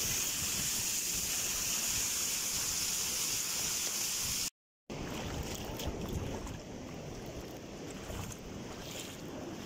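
Steady rushing outdoor noise of wind and sea. After about four and a half seconds it cuts to a quieter stretch of the same kind of noise.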